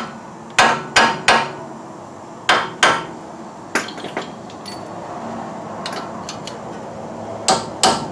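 A hammer striking metal on a car's front axle and suspension. The blows come in short runs of two or three, with pauses between them and a few light taps around the middle.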